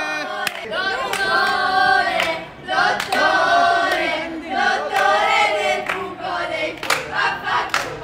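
A group of people singing a celebratory chant together, with hand claps scattered through it. It is sung in honour of a graduate.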